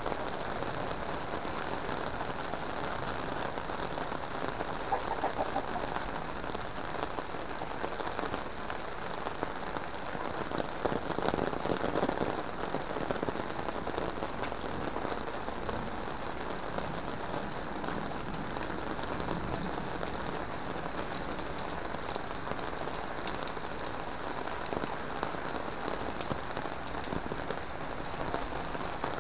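Heavy rain falling steadily on a wet paved lane, with a brief swell a little louder partway through.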